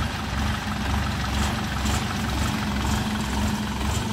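Engine of a small tracked rice carrier idling steadily.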